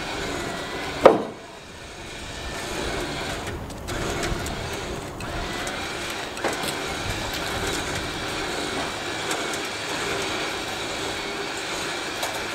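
Heavy low-loader lorry's engine running steadily while a tram is loaded onto its trailer, with a loud clank about a second in and a smaller knock at about six and a half seconds.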